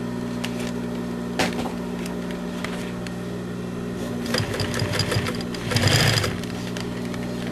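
Singer industrial sewing machine's motor running with a steady hum, with a sharp click about a second and a half in and a louder stretch of mechanical clatter a little past four seconds in, loudest around six seconds.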